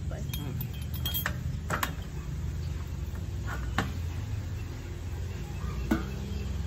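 Dishes and utensils clinking: a handful of sharp, irregular clinks over a steady low rumble.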